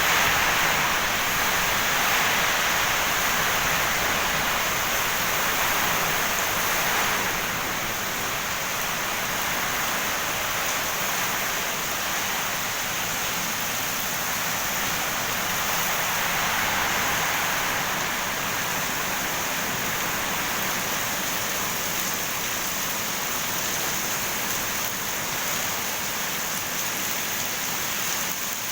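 Rain pouring down during a windstorm, a steady rushing hiss that is a little louder in the first seven seconds or so.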